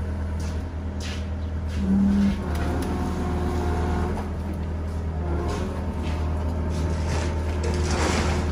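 John Deere compact track loader's diesel engine running steadily as the machine creeps forward on its rubber tracks carrying a loaded tote, with a brief louder tone about two seconds in.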